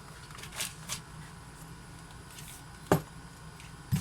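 Light rustling as small accessories are handled and packed into a drone carrying case, with one sharp knock about three seconds in.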